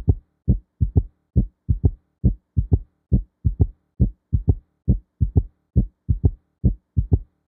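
Heart sounds with a third heart sound (S3): a repeating three-beat gallop of S1, S2 and an early-diastolic S3 just after S2, in the 'Ken-tuc-ky' rhythm. The beats are short and low and come at about seventy cycles a minute.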